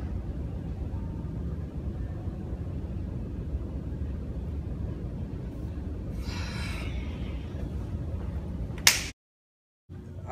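Steady low rumble of background noise, with a brief hiss about six seconds in and a sharp click near the end, after which the sound cuts out to dead silence for under a second.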